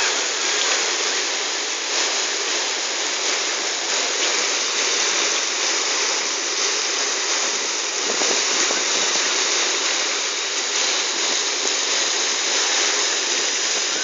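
Steady hiss of water jets spraying down from a beach hydromassage swing frame onto its wooden seats and the pebbles below.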